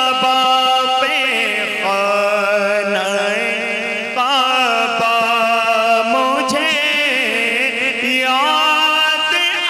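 A man singing a naat solo, drawing out long held notes with wavering ornaments between them.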